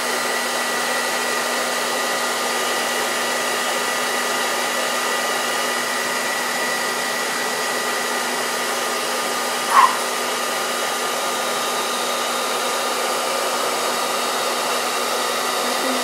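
Hair dryer running steadily on high, blowing hot air onto crayons glued to a canvas to melt the wax, with a steady motor whine under the rush of air. A short rising chirp sounds once about ten seconds in.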